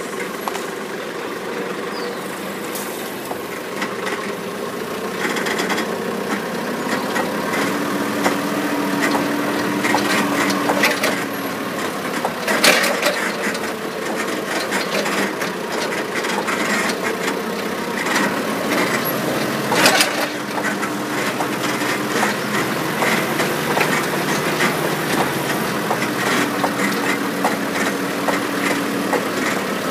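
Engine of a slow-moving work vehicle running steadily, with rattling and a couple of sharp knocks about twelve and twenty seconds in.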